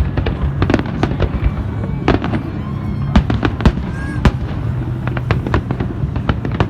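Festive fireworks salute bursting: many sharp bangs and crackles in quick, irregular succession over a continuous low rumble.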